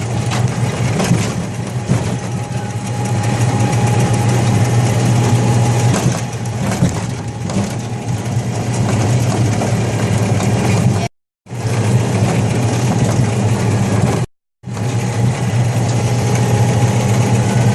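Engine of an antique-car amusement ride running steadily with a low, even hum. The sound cuts out briefly twice in the second half.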